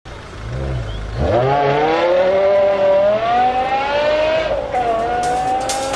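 A car engine rumbling low, then accelerating from about a second in, its pitch climbing steadily, with a brief dip in pitch near the end before it runs on at a high, steady pitch.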